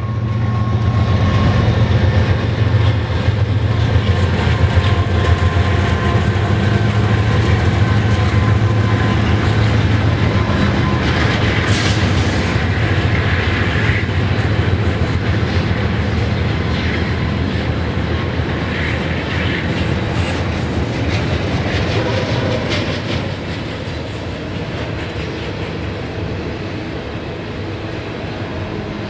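BNSF double-stack intermodal freight train passing close by: a steady rumble with wheels clattering on the rail joints, under a low diesel drone that eases off after about twenty seconds. Two brief high screeches come through, one about twelve seconds in and one about twenty seconds in.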